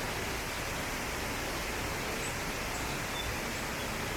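Steady rushing of a waterfall, water pouring over rocks, with a few faint high chirps.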